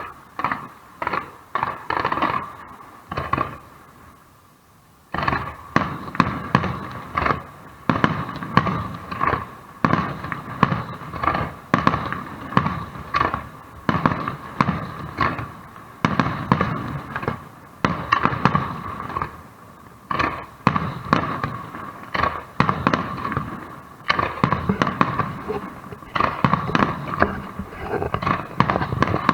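Fireworks shells bursting in quick succession, a few bangs a second, each with a short echoing tail. A brief lull about four seconds in, then a denser, continuous volley.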